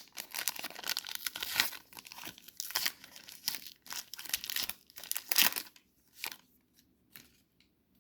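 A trading-card pack wrapper being torn open and crinkled: about six seconds of dense crackling and tearing, then a few separate faint ticks before it stops.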